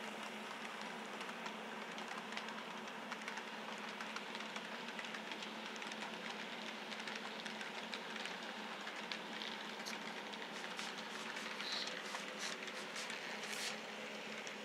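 Model freight train of box cars and a caboose rolling along the layout track, a steady electric hum and rumble of wheels on rail. A run of sharp clicks and ticks comes near the end.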